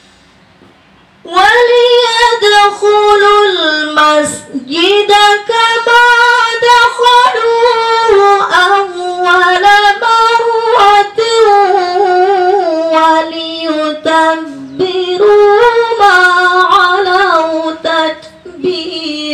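A woman's solo Qur'an recitation in the slow, melodic murattal style, starting about a second in: long held, gliding notes in phrases broken by short pauses for breath.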